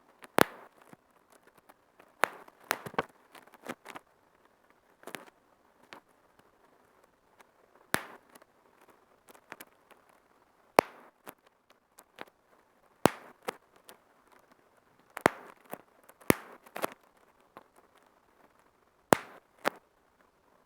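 Bubble wrap being popped by hand: sharp single pops at irregular intervals, sometimes two or three in quick succession, with soft crinkling of the plastic between them.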